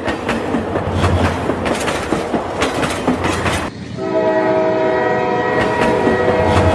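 Train sound effect: a train rolling with clicks of wheels on rail joints, then, about four seconds in, an abrupt cut to a steady train horn blast.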